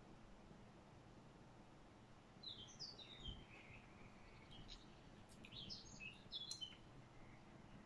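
Near silence with faint bird chirps: a few short high chirps about two and a half seconds in, then a quicker run of chirps a couple of seconds later.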